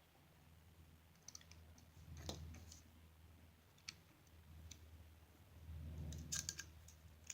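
Faint, scattered clicks and light handling of a small Torx screwdriver and the knife's small metal parts.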